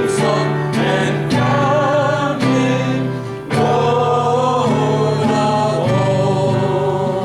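Music: a hymn sung by voices over instrumental accompaniment, the singers holding long, wavering notes.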